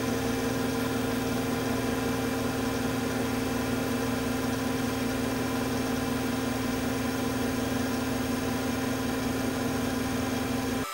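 Cortini L300 milling machine running with its end mill taking a straight cut through an aluminium block: a steady machine hum with cutting noise over it.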